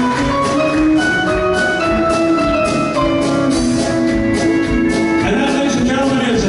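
Live band music with electronic keyboard and electric guitar, with one long note held through the middle.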